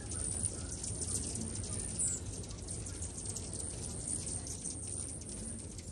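Many hummingbirds chipping and twittering around feeders, with a short rising chirp about two seconds in, over a steady hiss full of fine ticks and a low steady hum.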